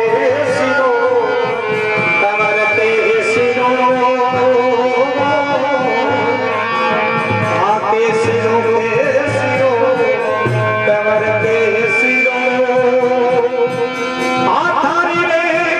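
Live Indian folk music: a harmonium plays a held, wavering melody over a dholak beating a steady rhythm, and a man's singing voice comes in strongly near the end.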